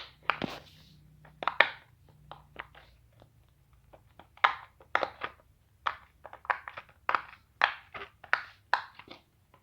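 Silicone pop-it fidget toy being pressed bubble by bubble: a string of short pops and clicks at an irregular pace, a few a second.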